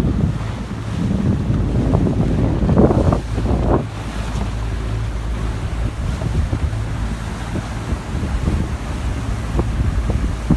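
Wind buffeting the microphone over a steady low rumble, with stronger gusts about one to four seconds in.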